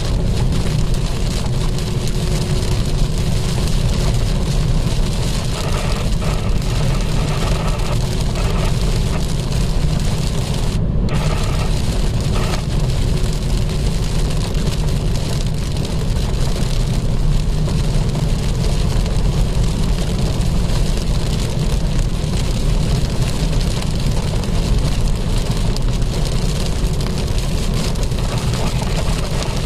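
Car driving on the highway in a torrential downpour, heard from inside the cabin: a steady, loud low rumble of road and engine noise with the hiss of heavy rain on the vehicle.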